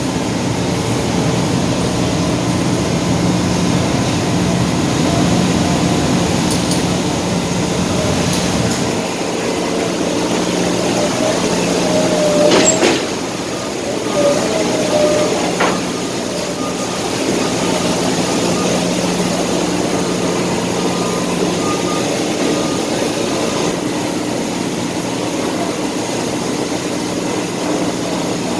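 Steady low hum of heavy vehicle engines and machinery running, with a brief sharp high squeal partway through.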